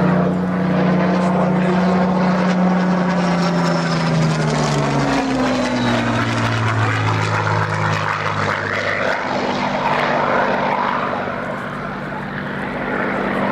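Rolls-Royce Merlin V12 engine of a WWII fighter flying a display pass. The engine note drops in pitch about four to five seconds in as the aircraft goes by, then rises again near the end as it comes round.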